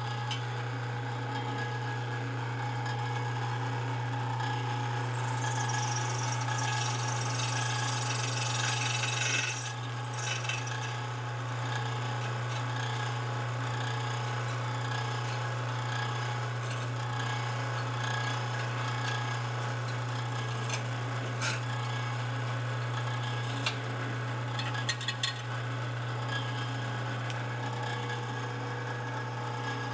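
Delta drill press running steadily, its cobalt bit drilling a 3/16-inch hole through a hardened stainless steel orthotic knee-joint casting. A few sharp clicks come through the motor noise.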